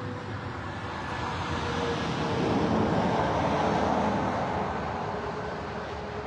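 A vehicle passing by on the road: a steady rush of engine and tyre noise that builds over the first couple of seconds, peaks in the middle and fades away near the end.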